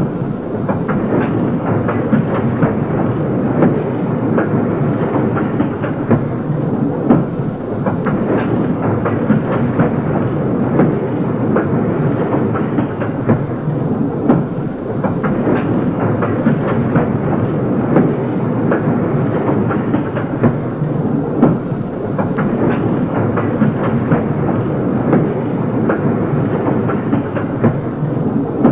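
Railway cars rolling along the track: a steady rumble with many irregular clacks from the wheels running over the rails.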